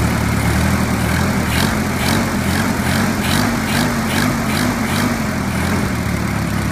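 Early-1940s Hercules ZXB four-cylinder flathead engine idling at a turned-down speed, running steadily with a light tick about three times a second. It is not running right, which the owner puts down to a faulty carburetor.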